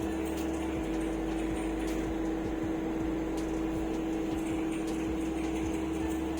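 Microwave oven running mid-cycle with a steady hum.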